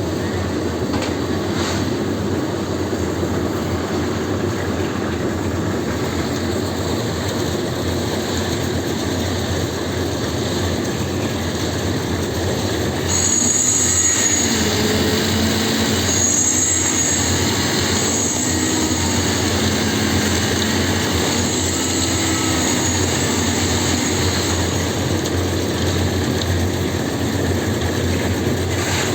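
Steady mechanical running noise with a clatter. About thirteen seconds in, an intermittent high-pitched squeal and wavering lower tones join it, and the sound grows a little louder.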